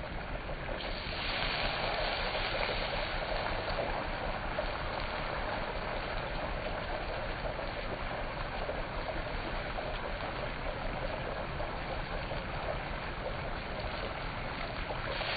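Hot oil sizzling and crackling steadily in a large iron karahi as battered fish deep-fries.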